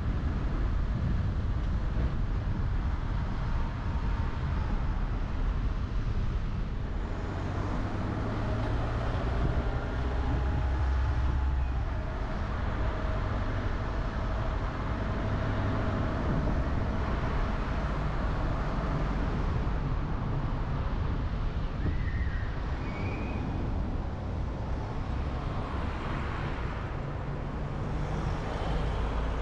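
A car driving along city roads: steady road and engine noise with a low rumble.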